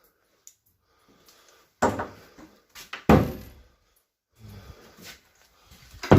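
An interior door being handled, giving three loud thuds with scuffing between them. The thuds come about two seconds in, about three seconds in, and near the end.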